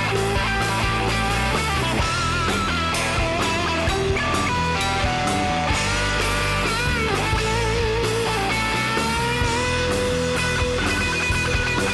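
Background rock music led by electric guitar, with bent lead notes over bass and drums.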